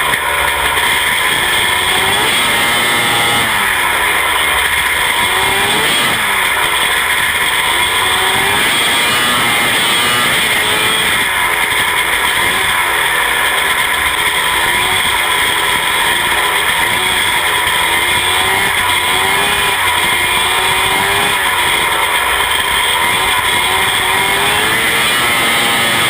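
Hurricane midget race car engines at racing speed, the engine note rising and falling again and again every couple of seconds as the throttle is opened and lifted around the short oval.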